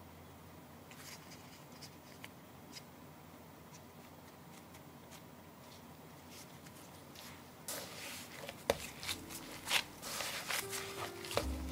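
Gloved hands working soft bread dough: faint soft ticks and rustles of nitrile gloves on the dough, which turn louder and busier, with crisp taps and rubbing, about eight seconds in as the dough is set down on the wooden board and rounded. Soft background music starts coming in near the end.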